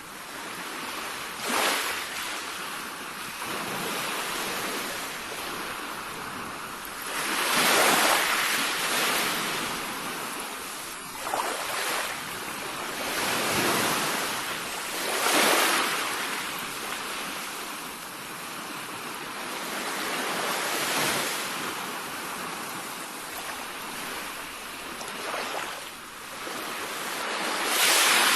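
Sea waves breaking and washing on the shore, a steady hiss rising into louder surges every several seconds.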